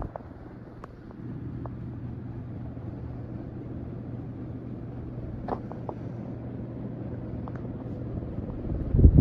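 Antique third-generation Fasco State Fair ceiling fan running on high: a steady low motor hum under the rush of air, with a few faint ticks. A loud gusty rumble starts near the end.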